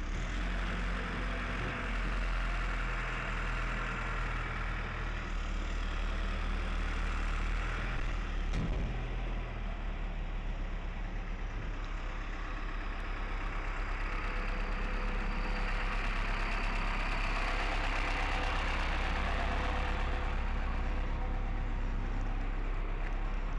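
A motor vehicle's engine idling steadily, a constant low drone with a haze of background noise over it.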